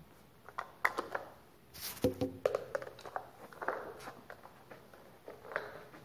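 A mop knocking and swishing on a tiled floor, with scattered sharp clicks and a short ringing clank about two seconds in.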